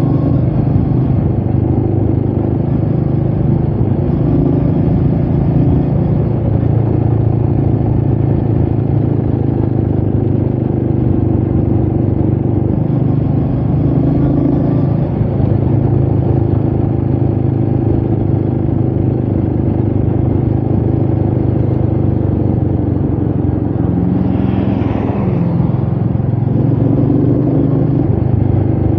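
Royal Enfield Meteor 350's single-cylinder engine running steadily under way, with wind noise on the microphone. A brief higher-pitched sound comes in about 25 seconds in.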